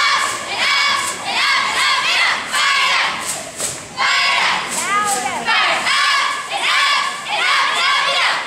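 A middle-school cheerleading squad shouting a cheer in unison, high young voices in short chanted phrases one after another with brief gaps between them.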